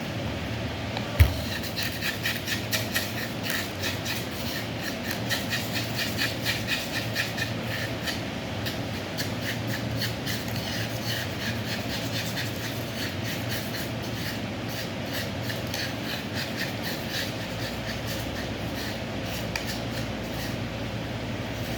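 Pestle grinding in a mortar, rhythmic scraping strokes about three a second that grow fainter in the second half, with a sharp knock about a second in. A steady low hum runs underneath.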